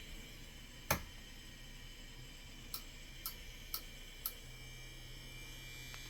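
ATX power supply's cooling fan running with a steady hum, its bearing worn and about to fail. A sharp click comes about a second in, then four lighter ticks a little over half a second apart around the middle.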